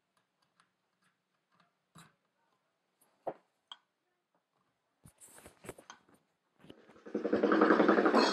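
A few soft clicks and taps as an audio cable and a small MP3 player are handled, then about seven seconds in music starts playing loudly from a small portable speaker built as a replica VW T1 van.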